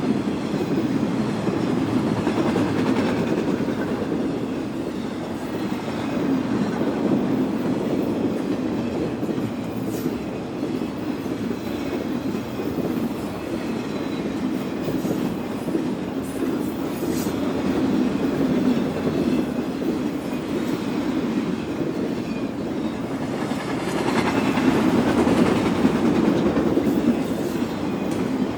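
A long freight train rolling past at speed: a steady rumble of steel wheels on rail with clickety-clack from the passing cars, swelling a little near the end.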